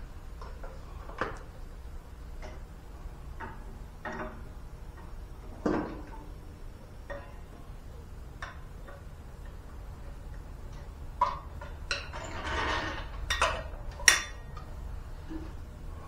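Scattered clicks, taps and light knocks of hand work at a lawn tractor tire, a plastic tire-sealant bottle and small tools being handled, with a busier run of clatters and a short rush of noise about twelve to fourteen seconds in.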